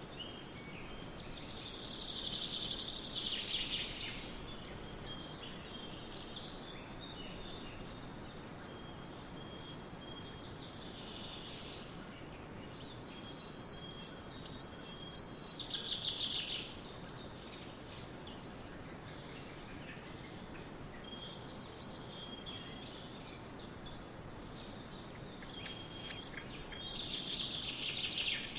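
Songbirds singing in a forest, with four louder bursts of high song and fainter thin whistled notes between them, over a steady background hiss.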